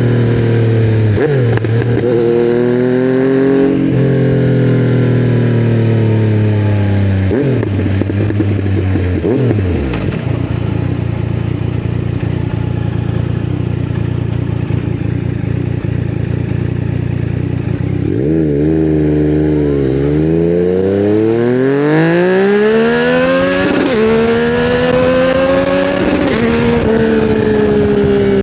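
2020 Yamaha MT-09's 847 cc three-cylinder engine through custom headers and a titanium Akrapovic silencer, revving up and dropping pitch at each upshift in the first few seconds, then easing off to a steady low run for about eight seconds. It then pulls away again, revs climbing with two or three more upshifts near the end.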